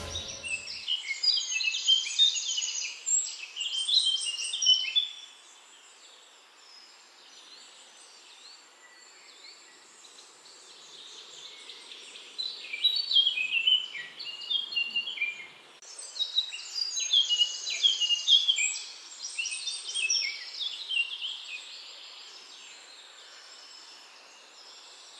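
A songbird singing rapid, varied phrases of high chirps and trills in two bouts, the first in the opening five seconds and the second from about twelve to twenty-one seconds in, over faint outdoor background hiss.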